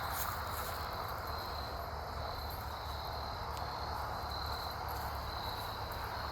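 Steady outdoor background noise, with a thin, high, steady tone that fades in and out several times.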